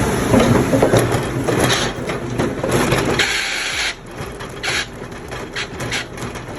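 A heavy machine grinding and crushing wood: a loud crunching with many sharp cracks and splintering, dropping in level about four seconds in and going on with scattered cracks.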